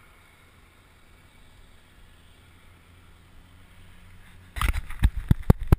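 Faint steady hum at first, then about three-quarters of the way in a burst of loud knocks and rustling from a freshly caught bass being handled close to the microphone.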